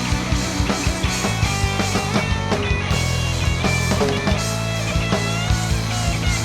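Instrumental rock with no vocals: a guitar plays a melody with bent, sustained notes over a drum kit and steady low bass notes.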